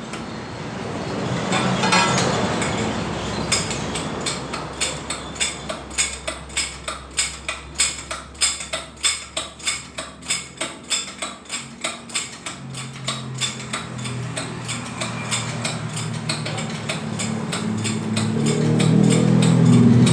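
Hammering on metal: regular strikes, about two to three a second, over a low steady hum, followed near the end by a rising low engine drone.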